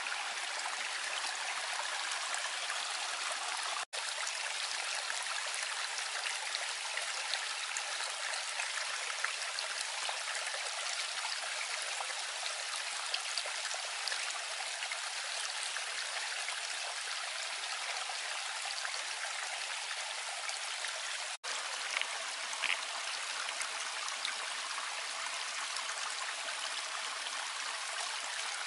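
Water rushing steadily through a breach in a small mud dam and spilling into a shallow pool, like a small stream.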